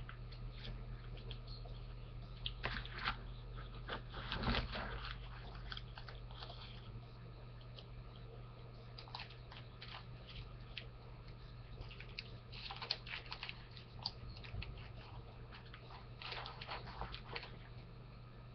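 Small items and their packaging being handled and packed into a pouch: scattered clusters of rustles and clicks, loudest about four to five seconds in, over a steady low hum.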